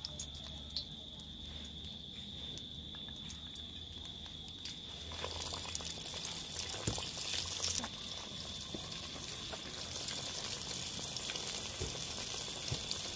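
Flour-dredged chicken breast frying in hot oil in a pot: a steady bubbling sizzle that swells about five seconds in as the piece settles into the oil, then holds. The oil is calmer this time.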